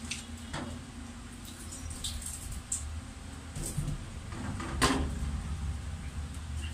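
Hands moving raw fish pieces around in a plastic bowl at a stainless-steel sink: scattered soft knocks and handling noises, with one sharper knock about five seconds in, over a steady low hum.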